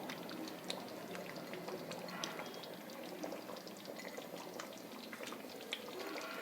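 Thick chicken curry with ground roasted coconut simmering in the pot on the stove, a faint bubbling with scattered small pops.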